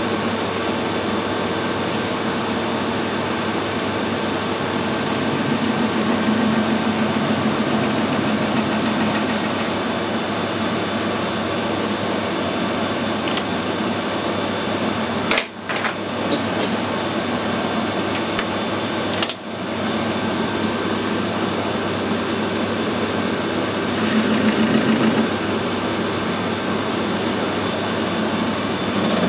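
Metal lathe running steadily with its chuck spinning while a lathe tool takes cuts on the metal part. The sound drops out briefly twice, around the middle.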